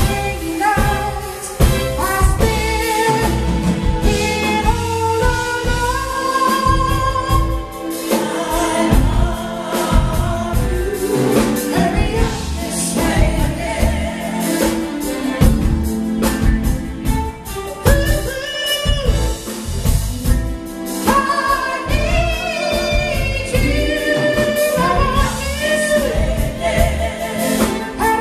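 Live band performance: a male lead singer with female backing vocalists, over drums and keyboard.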